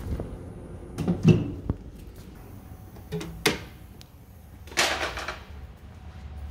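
Clicks and knocks of switches and knobs being turned off on shop equipment, including the plasma cutter's power unit, with a short rush of noise about five seconds in, over a low steady hum.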